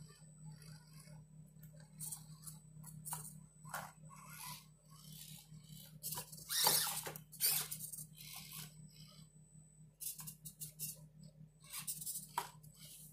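Axial SCX24 micro RC rock crawler climbing over rocks. Its quiet motor and gears hum steadily under irregular clicks, scrapes and knocks of tyres and chassis on stone. The knocks come thickest and loudest about halfway through.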